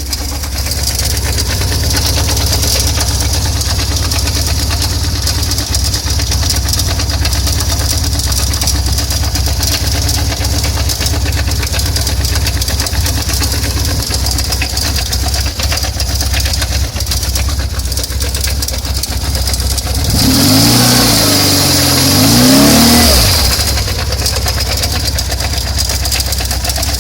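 BMW R1150R's flat-twin boxer engine idling with a steady rumble and fine clatter, revved up and back down about twenty seconds in; somewhere in it is the strange noise the owner is trying to identify.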